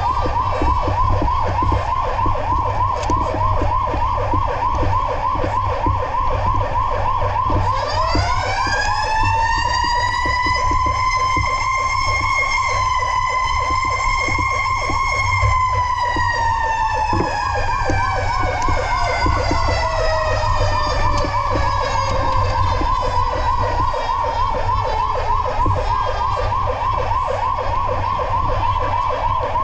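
Fire truck sirens. A fast electronic yelp runs throughout. About eight seconds in, a second siren joins: it winds up slowly, holds, winds down over more than ten seconds, and starts rising again near the end. A low rumble runs underneath.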